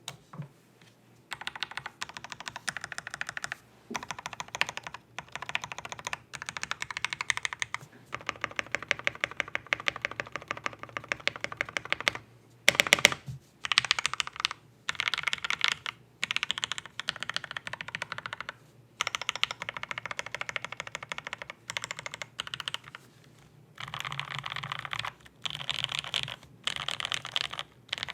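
Typing on a gasket-mounted polycarbonate KBD67mkii mechanical keyboard with an FR4 plate, foam inside and lubed JWK linear switches. The key presses come in fast runs of a second or two, separated by short pauses, with a louder flurry about halfway through.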